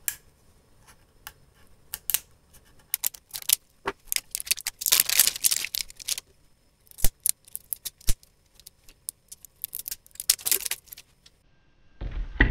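Small hard plastic clicks and light rattling, with two bursts of rustling: a plastic USB charger and its cables being handled.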